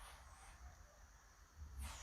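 Near silence: faint room hum, with one brief handling rustle of small lock parts near the end.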